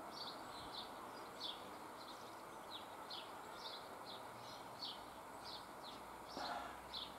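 Faint birdsong: a bird repeating short, high chirps, roughly two a second, over quiet outdoor background hiss.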